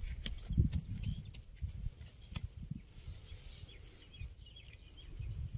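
Outdoor rural ambience with faint bird chirps, strongest a little past the middle, over irregular low thumps and scattered short clicks.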